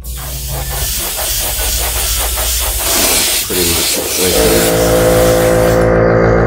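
Airbrush hissing as it sprays paint onto a crankbait lure, the air-and-paint hiss easing off about six seconds in. A steady low hum runs underneath, joined near the end by a steadier humming tone.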